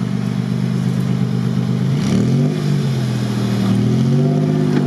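Lifted off-road 4x4's engine running at a steady low idle, then revved up about two seconds in and again, longer, near the end, as it pulls the vehicle over logs.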